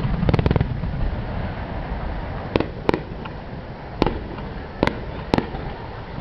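Aerial firework shells bursting: a quick cluster of sharp cracks at the start, then a low rumble dying away, broken by single sharp bangs about every second.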